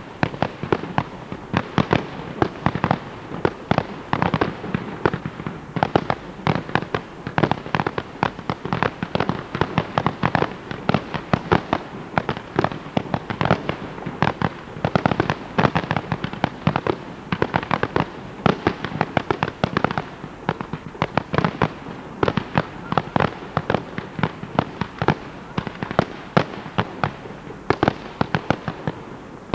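Professional fireworks display: aerial shells launching and bursting in a dense, continuous barrage, many sharp bangs a second with no pause, thinning slightly just at the end.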